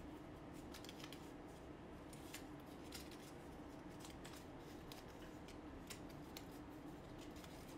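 Faint, scattered clicks of small plastic miniature-doll parts being handled and fitted together, over a low steady hum.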